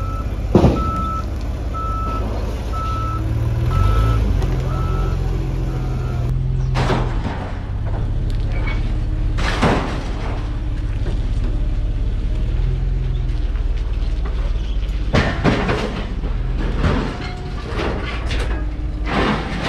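Yale forklift's engine running steadily, its reversing beeper sounding about once a second for the first six seconds as it lifts and backs away with the load. Sharp metal clanks and bangs come several times.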